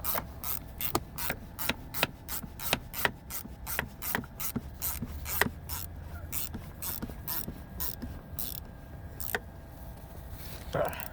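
Hand ratchet clicking in a steady rhythm, about three clicks a second, as an armrest mounting screw is driven in. The clicks thin out and stop after about nine seconds, and a short scrape follows near the end.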